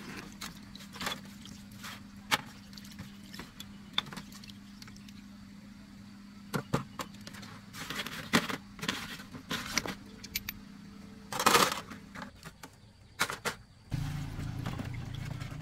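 Metal pump parts clinking and splashing in a metal tray of washing liquid as they are scrubbed with a brush by hand: scattered sharp clicks and knocks, with a longer splash about eleven seconds in. Near the end a low steady hum comes in.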